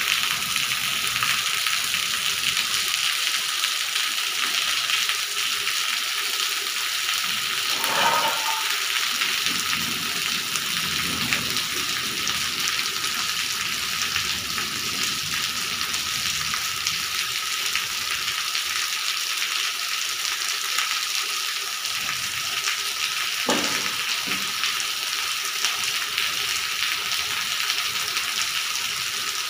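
Rain falling steadily on a wet tiled courtyard and tree leaves, an even hiss, with runoff pouring down off the top of a wall.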